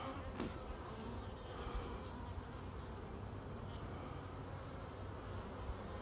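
Honey bees buzzing steadily around their hive.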